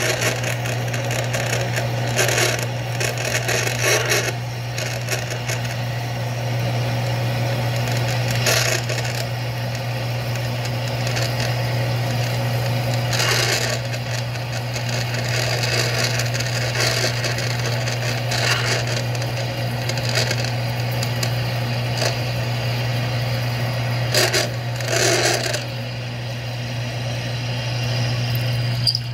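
Metal lathe drilling into a spinning metal puck with a drill bit in the tailstock chuck: a steady motor hum under a scratchy cutting noise that swells in short bursts every few seconds as chips curl off.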